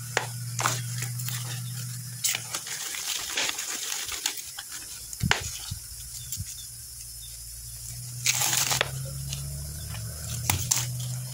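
Hands scooping potting mix of manure, charcoal and sand into a plastic plant pot and pressing it around the stems: soft crumbly rustles and scrapes, with a louder rush of soil about eight seconds in. A low steady hum runs underneath.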